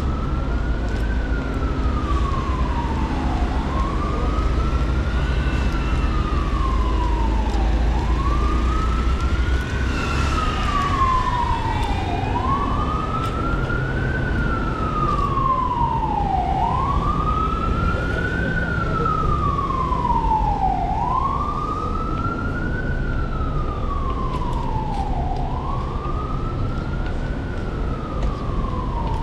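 A siren wailing: each cycle climbs quickly and falls slowly, repeating about every four and a half seconds, over a low rumble.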